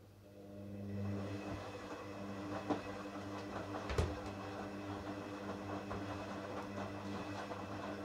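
Hoover Dynamic front-loading washing machine starting its drum turning on a rinse cycle: the motor hum rises over the first second and then runs steadily as the wet laundry tumbles. A sharp knock comes about four seconds in, with a smaller one just before it.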